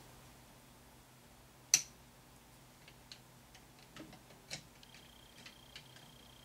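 Small hard parts of a statue being handled and fitted together: one sharp click a little under two seconds in, then scattered light ticks and taps.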